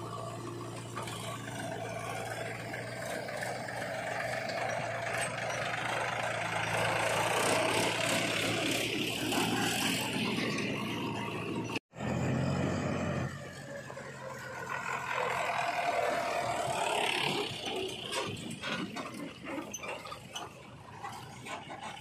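A JCB 3DX backhoe loader's diesel engine running as its loader bucket tips mud into a tractor trolley, getting louder over the first several seconds. After a sudden cut about halfway, a Mahindra 265 DI tractor's diesel engine running as it pulls a loaded trolley, with knocks and rattles near the end.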